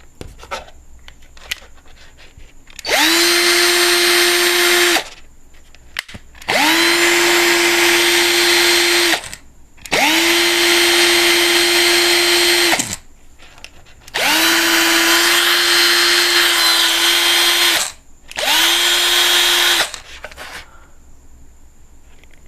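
Cordless drill motor, fed from a 12-volt charger through a jack in place of its dead battery, run in five bursts of one to four seconds; each time it spins up quickly to a steady whine and then stops.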